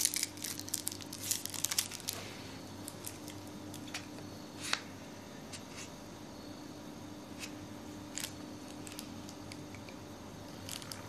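A small wrapper being crinkled open by hand: a busy flurry of crinkles over the first two seconds, then scattered single crinkles and ticks.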